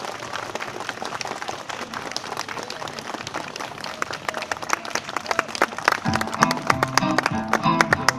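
Crowd applauding, then music with sharp plucked notes and a bass line starts about six seconds in.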